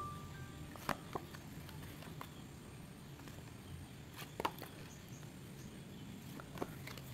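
Paper cards and thin card covers being handled and shuffled, with a few soft clicks and taps as the sheets knock against each other: about a second in, twice around four and a half seconds, and once more near the end. A last note of background music dies away at the very start.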